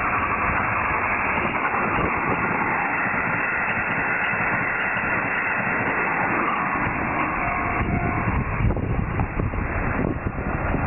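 Hankyu electric train passing over a level crossing: a steady, loud wheel-and-rail rumble, deepening about eight seconds in.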